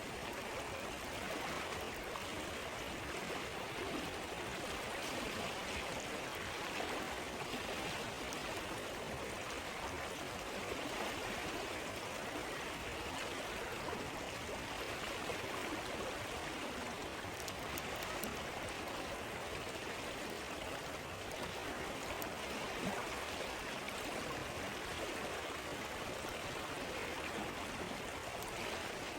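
River water flowing steadily: an even, continuous rushing and babbling of a stream.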